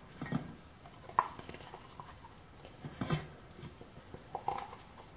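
Kitchenware being handled: a few scattered knocks and clinks of dishes and utensils, one with a short ring about a second in and the loudest about three seconds in.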